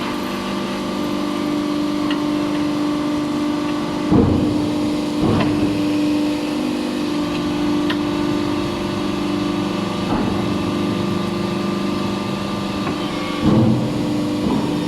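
Hydraulic scrap-metal baler running: a steady multi-tone hum from its pump and motor, with loud clunks about four seconds in, again a second later and near the end, each followed by a change in the hum's pitch as the machine shifts between strokes.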